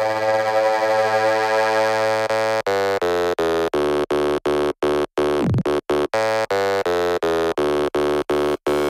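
Electronic music: a held synthesizer chord that, about two and a half seconds in, starts stuttering in rapid chopped pulses, roughly four a second, with a falling sweep near the middle.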